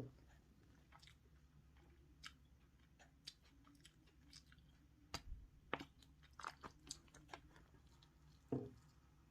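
Someone eating, faint irregular chewing and small crunches, with a cluster of louder crunches about five to seven seconds in.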